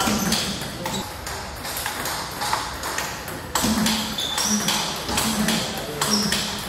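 Table tennis rally: the ball clicking sharply off the paddles and the table in quick alternation.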